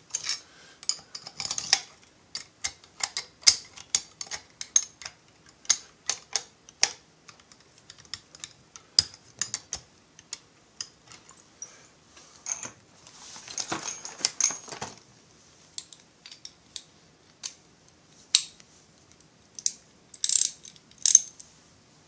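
Irregular light metallic clicks and taps of chainsaw cylinder base screws being turned down by hand as fingers work around the cylinder. A denser scratchy run of clicks comes about two-thirds of the way in, and two sharper clicks come near the end.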